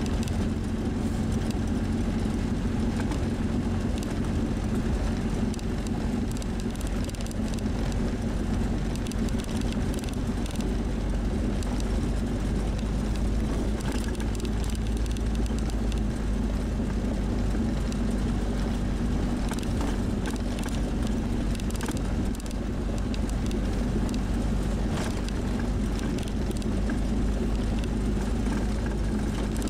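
1957 Škoda 440 Spartak's four-cylinder engine running steadily as the car drives, heard inside the cabin over road noise, with a few knocks along the way.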